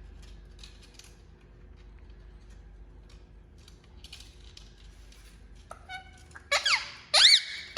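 Indian ringneck parakeet giving loud, shrill calls near the end, two in quick succession, each arching up and then sweeping down in pitch. Before them there are a few seconds of faint scattered clicks and scratches.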